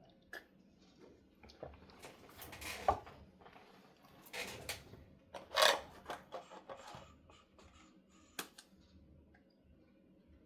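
Computer parts and packaging being handled: several short rustles and scrapes with light clicks, and one sharp click a little over 8 seconds in.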